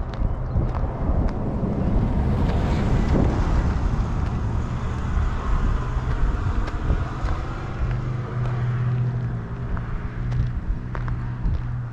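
A motor vehicle going past, its engine sound falling in pitch about three seconds in, over a steady low hum.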